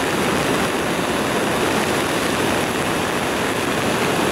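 Steady rushing of water, an even roar with no breaks.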